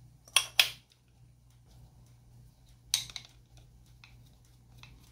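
Sharp clicks and knocks of the small plastic and metal parts of a trunk pull-down motor being handled and fitted together: two close together about half a second in and another about three seconds in, with a few faint ticks between.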